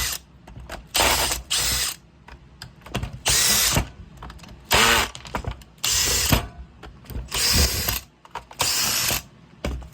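A screwdriver backing screws out of a Makita circular saw's housing, making about eight short bursts of ratchet-like mechanical clicking, each under a second long.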